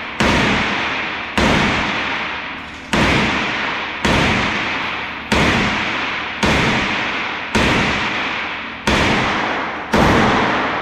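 Handgun shots at an indoor shooting range: nine single shots at a steady pace, about one every second and a quarter. Each shot is followed by a long echo that fades before the next.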